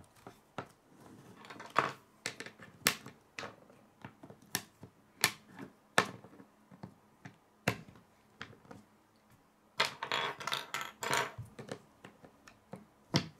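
Plastic K'nex rods and connectors clicking as they are snapped together and set down on a wooden table: scattered sharp clicks and knocks, with a denser clatter of pieces about three-quarters of the way through.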